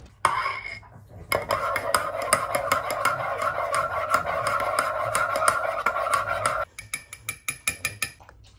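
Metal spoon stirring matcha in a ceramic mug: fast, continuous clinking against the sides with the mug ringing. Near the end it gives way to slower, separate clinks.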